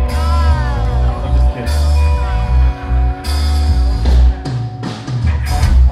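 Live rock band playing loudly: drum kit and electric guitar over heavy bass.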